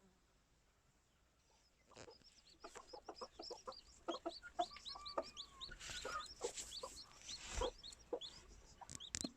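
Small chicks peeping in quick, high chirps while a hen clucks in short low notes, starting about two seconds in. A sharp click comes near the end.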